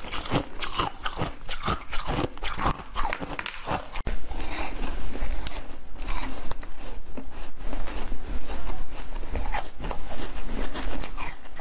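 Close-miked crunching and chewing of frozen jelly, many sharp crackling bites. About four seconds in it cuts abruptly to another round of crunchy biting and chewing of a small frozen treat.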